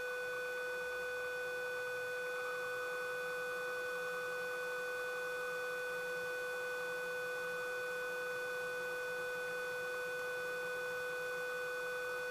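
A steady electrical tone on the cockpit intercom audio, one fixed pitch with a ladder of higher overtones, over a faint rushing noise; the pitch does not change as power is applied.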